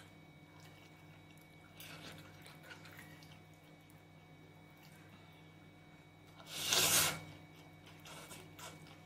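Close-miked eating of curry noodles with wet mouth sounds and chewing, and one loud slurp of noodles lasting about half a second, roughly two-thirds of the way in.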